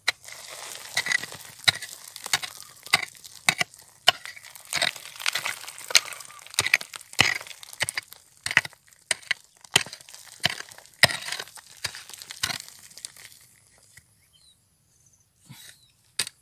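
A small wooden-handled digging tool striking and scraping into flaky dark shale, about one and a half sharp hits a second, with the shale cracking and chinking as it breaks away. The strikes stop about thirteen seconds in, then two more come near the end.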